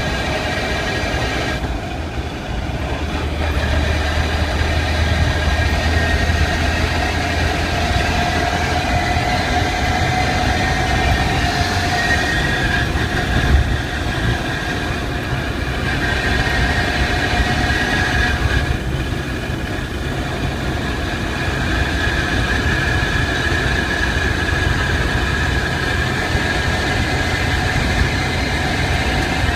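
A car's drivetrain whining while driving, over a steady low rumble. The whine slowly rises and shifts in pitch and breaks off briefly twice. This is the noise the owner traces to the gearbox or clutch; it comes only with the clutch engaged and under acceleration.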